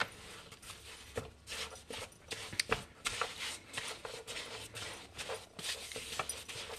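Hands kneading and rounding a soft, sticky potato pizza dough on a floured wooden board: quiet, irregular rubbing and patting, with a few sharper pats.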